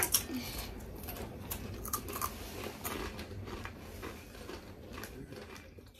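People chewing snacks with small crunches and scattered soft clicks.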